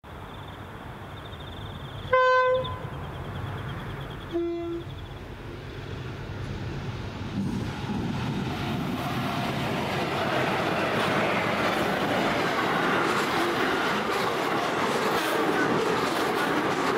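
Freight train led by SCT's CSR class diesel locomotives sounds two short horn blasts about two seconds apart, the first louder and higher-pitched, as it nears the level crossing. The locomotives' rumble then builds, and the long rake of wagons rolls past steadily with clickety-clack from the wheels.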